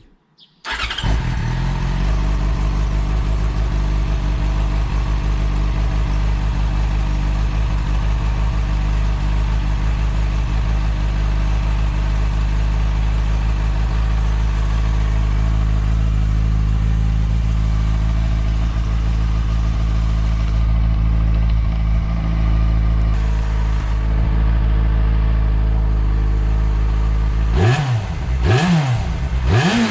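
Yamaha FZ6S Fazer's inline-four engine, breathing through an Akrapovic titanium slip-on silencer, starts up about a second in and idles steadily. Near the end it is revved three times in quick succession, each blip rising and falling in pitch.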